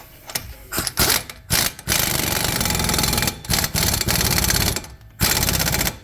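Impact wrench hammering the big axle nut onto a new front wheel hub and bearing assembly. A few short bursts come in the first two seconds, then three longer runs of about a second each. The nut is being run down before its final torque.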